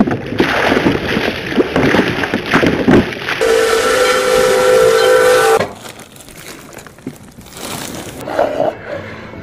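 Water splashing for about three seconds, then a steam locomotive's whistle blows one steady chord for about two seconds. The locomotive is Pere Marquette 1225, a 2-8-4 Berkshire.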